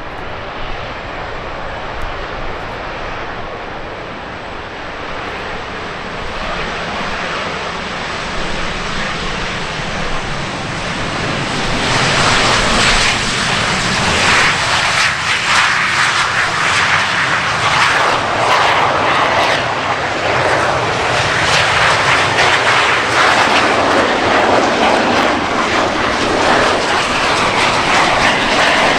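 Aircraft engine noise from a low pass overhead, growing steadily and becoming much louder about twelve seconds in, then staying loud.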